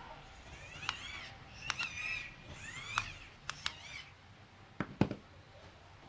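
Sharp metallic clicks from pliers gripping and twisting the shaft of a microwave turntable motor, the loudest about five seconds in, with several high squeals that rise and fall in pitch during the first three seconds.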